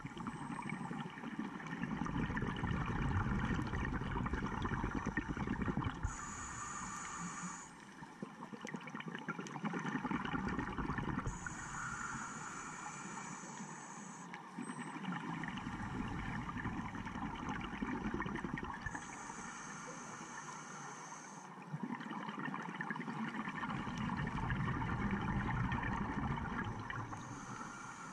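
Scuba diver breathing through a regulator, heard underwater through a camera housing: a short high hiss on each inhale, then a longer spell of exhaled bubbles gurgling out, about one breath every eight seconds.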